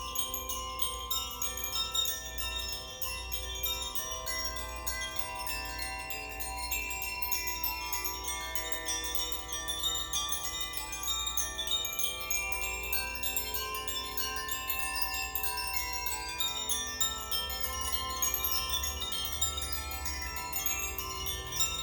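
Koshi chimes played by hand: tuned metal rods struck continuously by the clapper inside, many bright tones ringing and overlapping into a shimmering wash of overtones.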